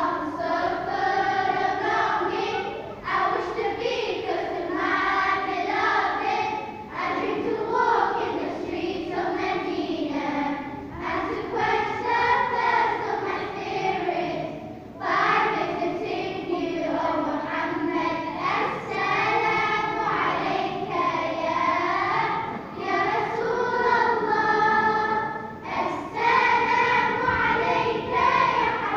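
High young voices singing a wavering melody in phrases a few seconds long, with short breaks between them.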